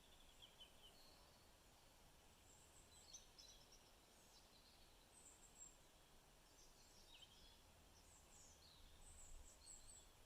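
Faint birdsong: short high chirps and brief trills from small birds, scattered through, over a soft low background hush.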